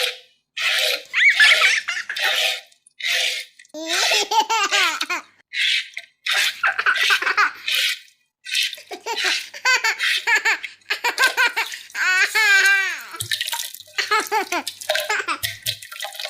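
A young child laughing in repeated bursts with short pauses between them.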